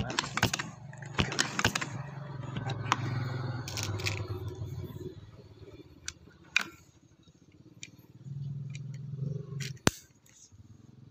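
Handling noise from the air rifle and scope: scattered clicks and rattles with a low rumble, and one sharp click about ten seconds in.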